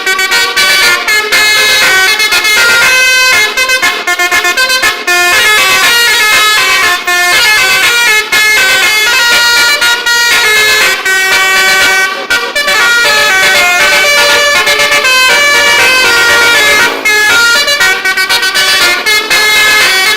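Telolet multi-tone air horns on a vehicle playing a loud melody, several horn pitches at once changing note every fraction of a second, with a few brief breaks between phrases.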